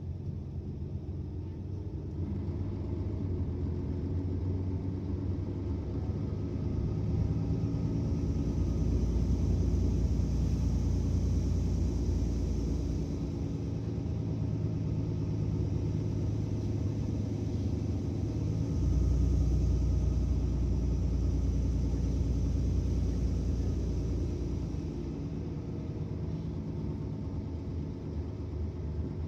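Mercedes-Benz Citaro O530 city bus engine running under load, heard from inside the bus: a deep rumble that builds over the first several seconds, eases a little, then steps up louder about nineteen seconds in before dropping back near the end.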